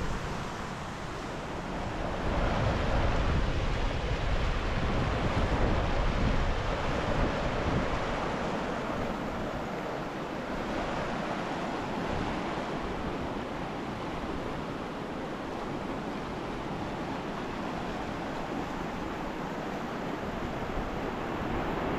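A mountain river rushing steadily, with wind gusting on the microphone, a little louder a couple of seconds in.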